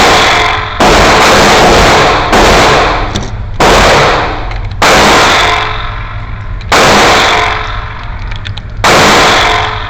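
Glock 19 Gen 6 9mm pistol firing six single shots at an uneven pace, one to two seconds apart, each shot echoing away over about a second.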